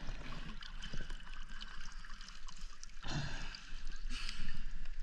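Water trickling and gurgling, with a light fizz and a soft low knock about three seconds in.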